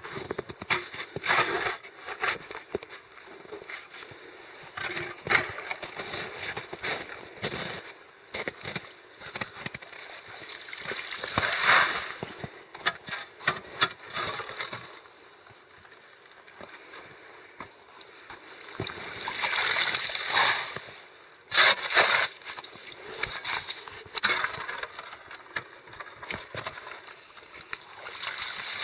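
Shovel working a freshly cut hole through thick lake ice, scraping and scooping out slush and water, with splashes and knocks that come in irregular bursts. There are longer swells of scooping about 12 and 20 seconds in.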